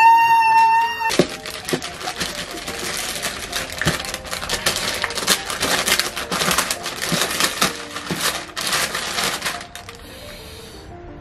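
Paper wrapping and tissue paper crinkling and rustling in quick, irregular crackles as a gift package is torn open and unpacked, over light background music. A held musical note cuts off about a second in.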